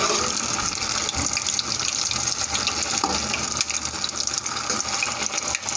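Maida-and-buttermilk batter puas deep-frying in hot oil, the oil sizzling and bubbling steadily with a fine crackle.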